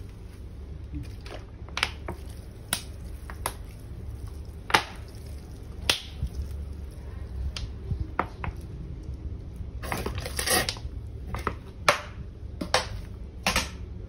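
Sharp irregular clicks and scrapes of a metal spatula working through chopped green peppers, grated carrot and salt in a large plastic basin, with a dense run of crackles about ten seconds in, over a low steady hum.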